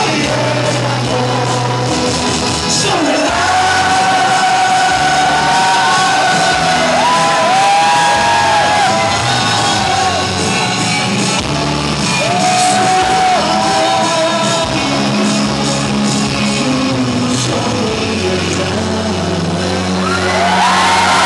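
A man singing live into a microphone over a recorded backing track, amplified through the hall's sound system, holding long notes that slide between pitches.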